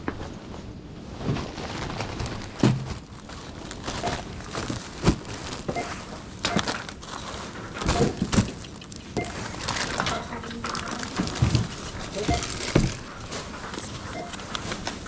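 Plastic shopping bags crinkling and groceries being handled, with scattered knocks and clicks over indistinct voices.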